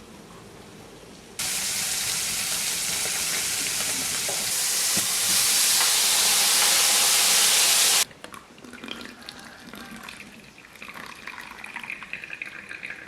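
Kitchen tap turned on and running hard into the sink, the flow getting louder about halfway through, then shut off abruptly. Light clinks and clatter follow.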